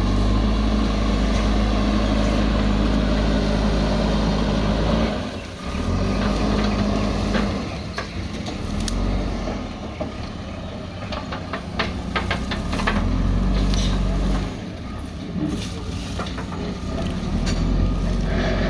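JCB backhoe loader's diesel engine running, its note rising and easing off several times as the load changes. A quick series of sharp knocks comes a little past the middle.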